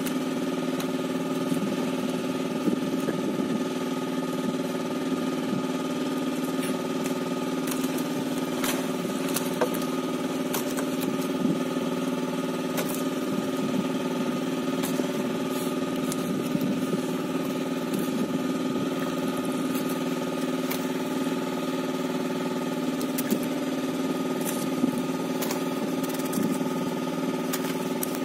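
Small engine running steadily at an even speed, with a few light clicks and knocks over it.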